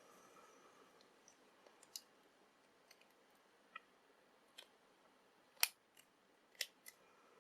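Scattered small metallic clicks as a thin metal padlock shim is bent by hand and fitted against a padlock's shackle, with two louder clicks late on, about a second apart.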